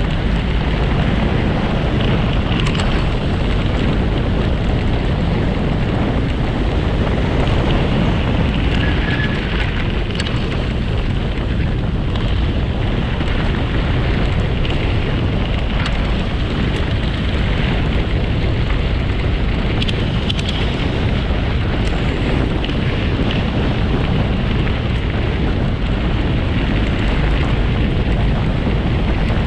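Wind buffeting the microphone of a camera moving fast along a gravel path, mixed with tyre rumble on the gravel: a steady, dense rushing noise with a few faint clicks.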